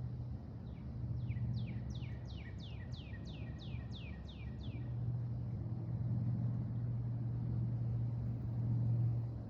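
A songbird singing a run of about a dozen quick, high whistled notes, each sliding down in pitch, over about four seconds. A steady low hum runs underneath.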